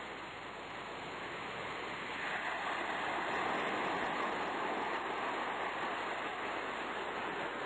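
Sea surf washing as a steady rushing noise, swelling from about two seconds in and slowly easing again.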